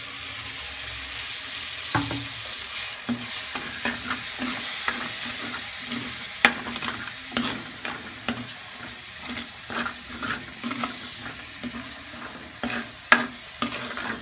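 Ground green masala paste sizzling in hot oil as it is stirred into fried onion-tomato masala in a clay pot. A steel spoon scrapes and clicks against the pot throughout, with the sharpest clicks about six and a half seconds in and near the end.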